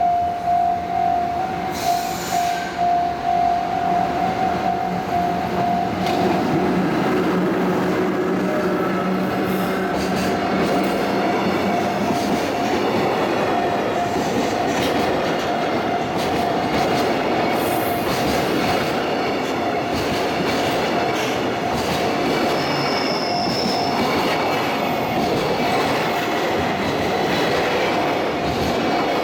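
A Japanese level-crossing warning bell rings steadily in repeated dings. About six seconds in, a train begins passing over the crossing, and its wheels on the rails rise into a steady loud rumble. Thin high wheel squeals come in later, and the bell keeps ringing underneath.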